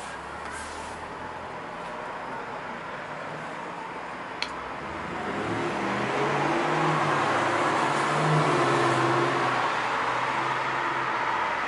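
A motor vehicle's engine hum and road noise, swelling about five seconds in and staying up, with a brief click shortly before.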